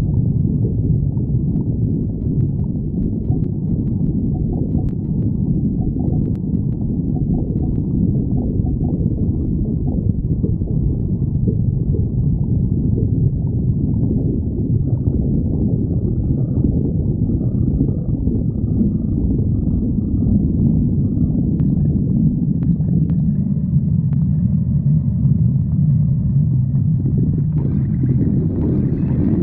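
Hungry stomach growling: a continuous low rumbling and gurgling. A brighter, rushing noise joins near the end.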